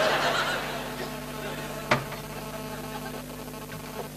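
Steady low electrical hum with a single sharp click about two seconds in.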